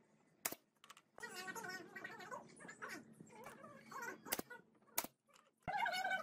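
Pneumatic brad nailer driving nails into pine boards, giving sharp single shots: one about half a second in, then three in quick succession over the last two seconds. Wavering pitched calls sound in the background between the shots.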